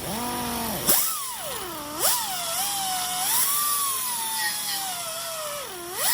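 Angle grinder running against steel edges, its whine repeatedly dropping and rising in pitch as it is pressed into the metal and eased off, with a few short bursts of grinding hiss.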